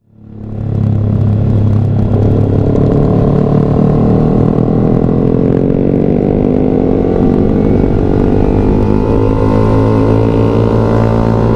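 Yamaha R15 V3's 155 cc single-cylinder engine running under way, fading in over the first second, then holding a steady note that slowly rises in pitch.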